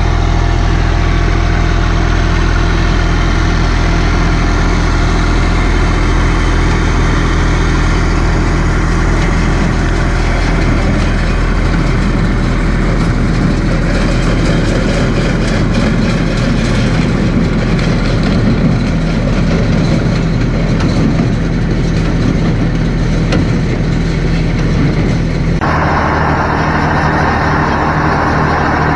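Massey Ferguson 254S tractor's diesel engine running steadily at a constant speed. About 26 seconds in, the sound shifts abruptly to the engine heard from inside the cab, with less deep bass and more mid-range rumble.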